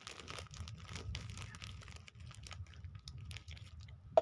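Thin clear plastic snack bag crinkling and rustling as it is squeezed and handled, with one sharp click just before the end.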